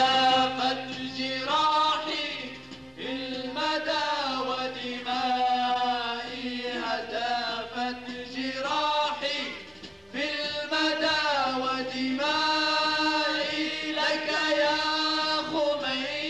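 Men's voices chanting a melodic chant into microphones, in long phrases with held, wavering notes over a steady low drone, with a short break about ten seconds in.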